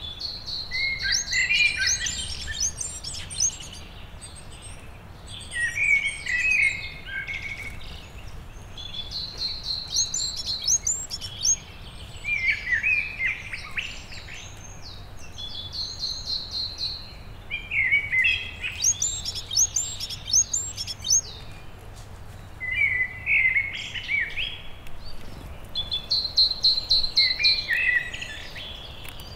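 Songbirds singing: short, bright phrases of quick high notes and a rapid trill, each dropping to lower notes, repeated every four to five seconds.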